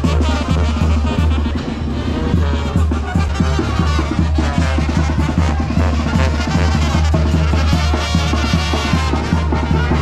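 Banda-style music playing loudly: brass and drums over a heavy, steady bass line.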